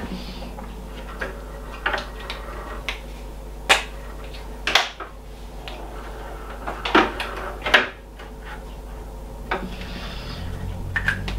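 Scattered light knocks and clicks, about ten of them at irregular moments, as icing pens and gingerbread biscuits are handled and set down on a wooden chopping board, over a low steady hum.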